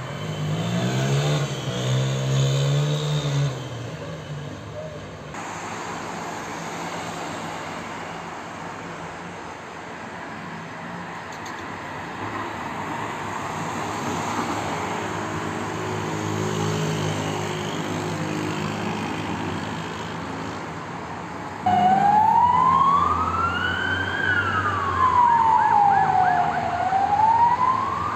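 Street noise, then about three-quarters of the way through an emergency vehicle siren starts wailing loudly, sweeping slowly up and down, a few seconds per sweep.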